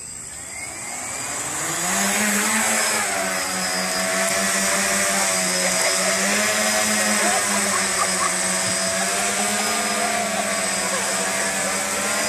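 DJI Phantom quadcopter's four electric motors and propellers spinning up, rising in pitch over the first two seconds as it lifts off the road, then a steady buzzing hover that wavers slightly in pitch as it manoeuvres.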